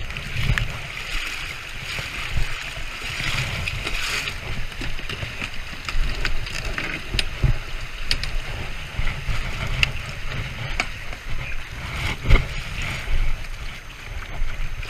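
River water rushing and lapping against the tubes of an inflatable pontoon boat, under a low rumble of wind buffeting the microphone. Scattered knocks and clicks from the boat's frame and gear come through, the loudest about twelve seconds in.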